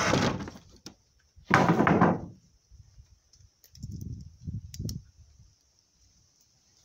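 Weathered wooden plank door being pushed open, scraping and knocking loudly twice in the first two seconds. A few softer thuds follow around four to five seconds in.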